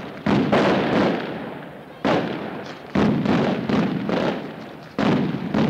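Mascletà firecrackers strung on ropes going off: a dense crackle of bangs with sudden louder blasts every second or two, each dying away over about a second. Recorded on a Super 8 magnetic sound track.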